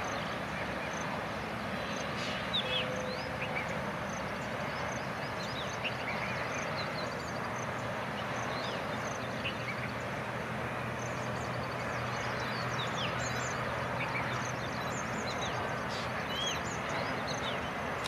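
Many birds chirping and calling over a steady wash of outdoor background noise, with a faint low hum from a distant approaching diesel locomotive through the middle stretch.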